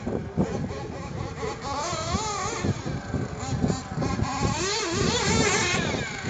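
1/8-scale nitro RC buggy engines racing, a high whine that keeps rising and falling in pitch as they throttle up and back off.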